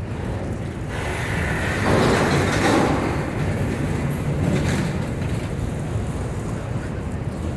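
Autorack freight cars rolling past close by: a steady rumble of steel wheels on rail, growing louder and brighter about two seconds in before settling back.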